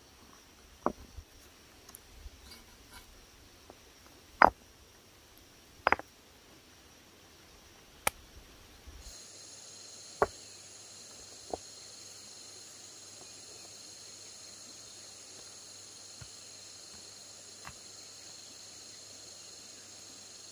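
A handful of sharp, isolated knocks or taps at irregular intervals, the loudest about four and a half seconds in, over a steady high buzz of insects that grows stronger and changes abruptly about nine seconds in.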